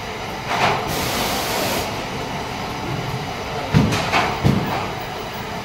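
Steady running noise of a factory floor. A short hiss comes about a second in, and three low knocks follow close together about four seconds in.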